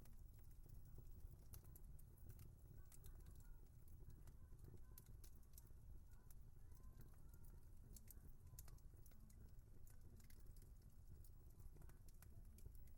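Faint wood fire crackling: irregular sharp pops and snaps over a low, steady rumble.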